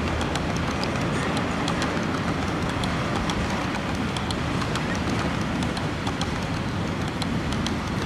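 An HO-scale model passenger train of stainless-steel streamlined cars rolling past on its track: a steady rumble of wheels on rail, with many small sharp clicks as the wheels cross rail joints.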